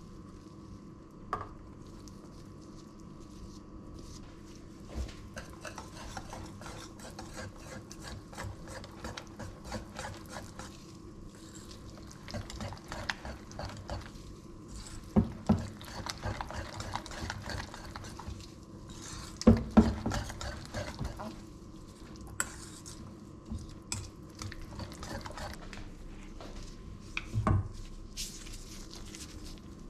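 A metal utensil stirring thick batter in a stainless steel mixing bowl, scraping and clinking against the bowl, with a few louder knocks of things set down on the counter, over a faint steady hum.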